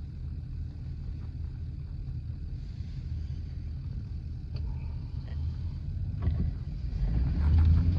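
Steady low rumble of a moving car on the road, engine and tyre noise, growing louder near the end.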